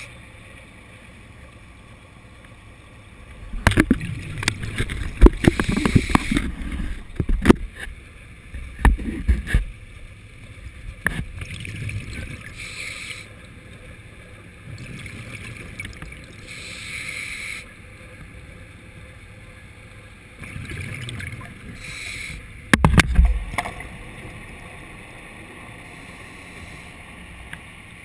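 Underwater sound picked up through a camera housing: irregular bursts of bubbling and rushing water mixed with sharp knocks and clicks, heaviest in the first half and again in a short cluster of loud knocks about three-quarters of the way through.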